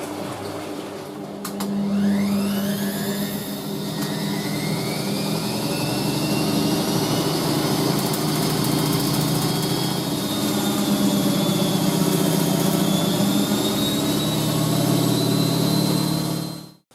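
Washing machine drum spinning up: the motor's whine rises over a second or two, then holds as a steady high whine over a low hum. It cuts off abruptly near the end.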